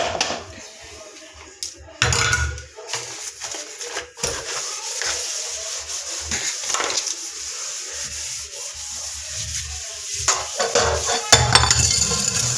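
Hand scrubbing the inside of a stainless-steel kitchen sink, a rough, uneven rubbing that gets louder about two seconds in.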